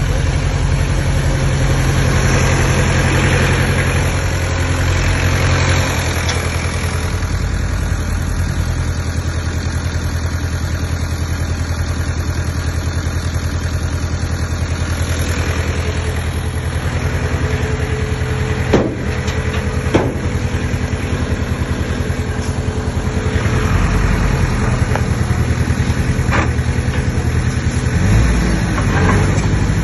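Diesel engine of a Komatsu D20P crawler bulldozer running steadily, swelling and easing in level. Two sharp knocks, a little over a second apart, come past the middle.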